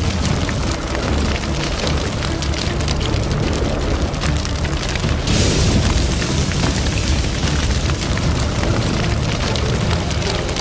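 Fire sound effect: crackling flames over a deep rumble, with a brief rushing flare-up a little over five seconds in.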